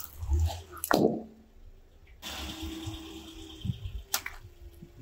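Car tyre rolling slowly over objects on concrete: a sharp crack about a second in, a steady hiss, then a sharp pop just after four seconds as a water-filled balloon in mesh netting bursts under the tyre, with water splashing out.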